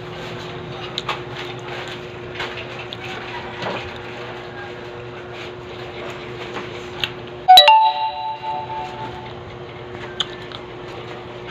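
Scattered small clicks and clinks, then about seven and a half seconds in a single loud strike on a hard object, which rings on with several clear tones for about a second and a half, like a metal or glass dish being hit.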